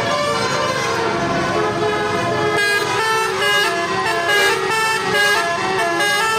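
A bus's basuri (telolet) multi-tone air horn playing a tune, several notes sounding together. Longer held notes give way to quicker short notes about two and a half seconds in.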